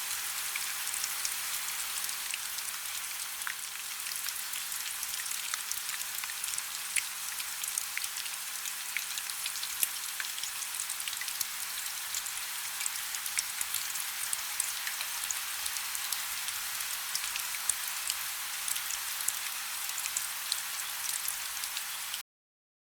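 Steady rain falling, with many individual drops ticking over an even hiss, cutting off suddenly near the end.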